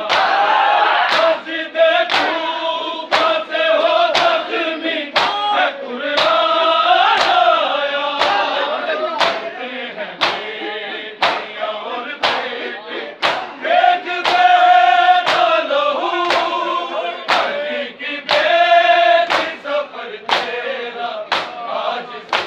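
Crowd of men chanting a Shia noha in unison, kept in time by a steady rhythm of hand strikes on bare chests (matam), about one strong beat a second.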